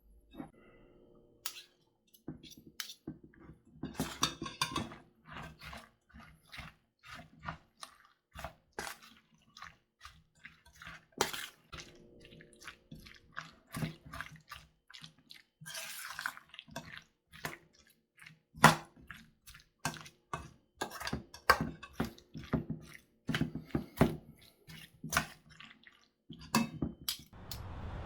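Kitchen work: irregular clinks, taps and knocks of dishes and utensils, with some splashes of water.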